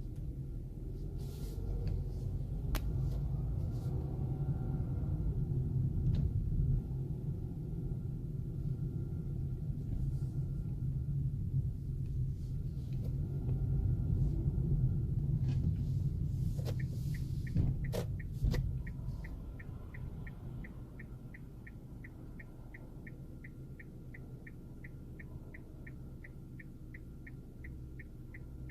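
Cabin noise of a 2016 Kia Rio on the move: a low rumble of road and engine that eases as the car slows. About two-thirds of the way through, a steady, rapid ticking starts, like a turn-signal relay, and keeps going. A few sharp knocks are heard, but none of the clunks the owner reports when turning.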